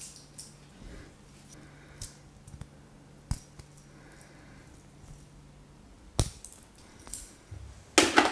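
Hands working during a head and back massage: a few sharp isolated clicks over a faint steady hum, then a loud quick flurry of hand strikes on the body near the end.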